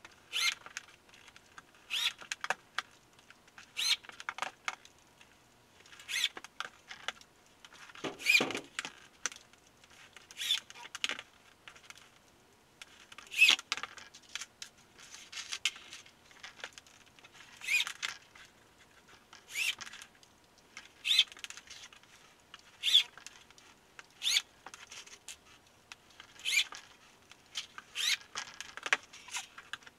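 Corded electric drill driving screws into a plywood floor panel in short bursts, about one every two seconds.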